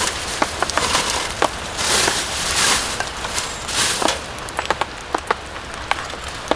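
Wood campfire crackling, with many irregular sharp pops and snaps over a steady hiss that swells up loudly a few times.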